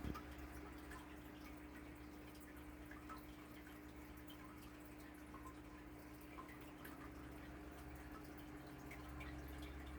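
Near silence: dead air on the broadcast feed, a faint steady electrical hum with a few faint scattered ticks.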